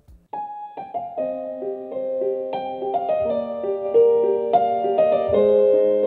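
Slow solo piano music starting about a third of a second in, single notes building into held chords that ring on.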